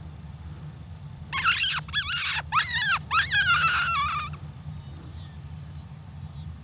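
A predator call used to stop an approaching coyote: loud, high, wavering animal-like cries in four bursts over about three seconds.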